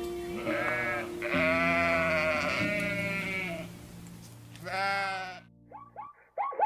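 A sheep or goat bleating three times: a short call, a long wavering call of about two seconds, then another short call.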